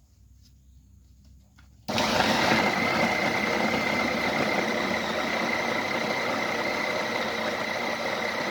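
Electric meat chopper switched on at speed 1 about two seconds in, its motor and blades then running steadily with a high whine as it chops cassava in water.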